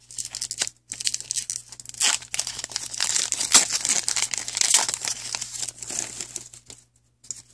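Foil trading-card pack wrapper torn open and crinkled by hand, a dense crackling that stops about seven seconds in.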